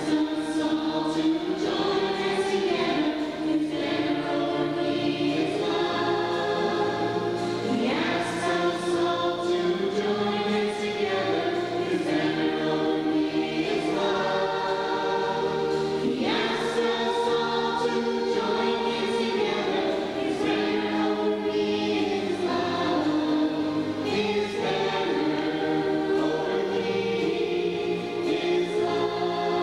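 A group of children singing a hymn together.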